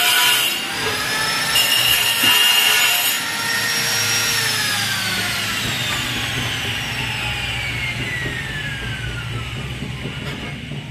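Angle grinder running with a high whine and a harsher burst of noise from about one and a half to three seconds in, then switched off and coasting down, its whine falling steadily in pitch for several seconds.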